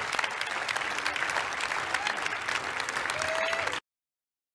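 Audience applauding, a dense steady patter of clapping that cuts off abruptly near the end.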